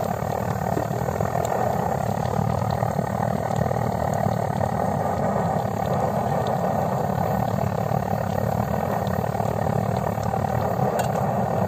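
Gas blowtorch burner running on a low flame under a frying pan, a steady unbroken rushing noise, with oil sizzling in the pan and a few faint crackles.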